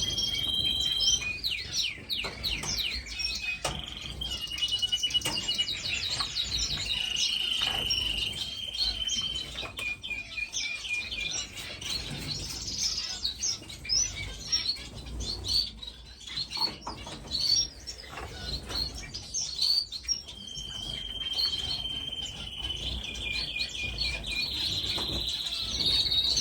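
A roomful of caged finches chirping and calling all at once: a dense, overlapping chatter of short high chirps, with several longer trilling notes running under it.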